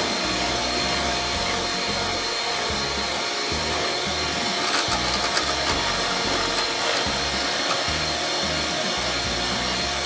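Electric mixer running steadily with a constant whine, whipping cream and sugar toward stiff peaks.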